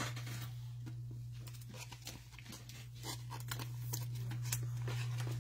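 Gloved hands handling a trading card and its plastic sleeve, with faint rustles and small clicks of plastic and card stock, over a steady low hum.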